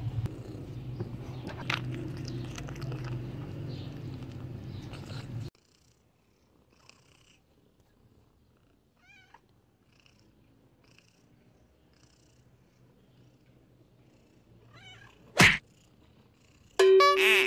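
A cat close to the microphone makes a low, steady rumble while eating a piece of meat. This cuts off sharply about five seconds in, leaving a quiet stretch with a few faint chirps. Near the end the cat meows loudly twice, first a short call, then a longer one.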